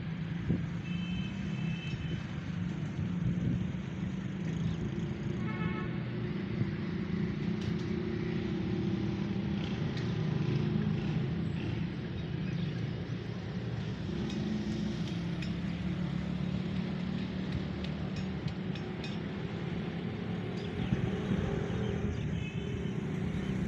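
Diesel locomotive engine running steadily with a deep rumble. A few brief high chirps sound over it, about a second in, around six seconds in and near the end.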